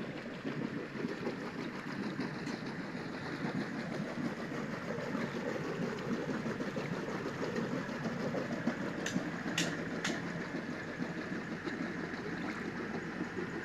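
A vehicle travelling along a rough dirt road: a steady rumble of engine and road noise, with three short clicks about nine to ten seconds in.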